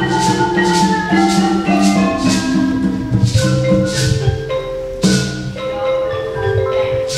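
An ensemble of barred xylophones struck with mallets plays a tune over a drum, with a shaker keeping a steady beat of about two strokes a second.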